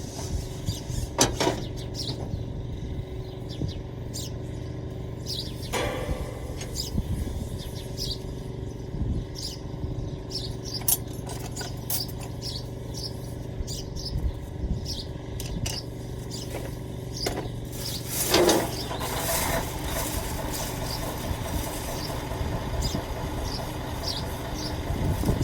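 An engine idling steadily, with birds chirping and a few metallic knocks from work on the machine, the loudest about two-thirds of the way through.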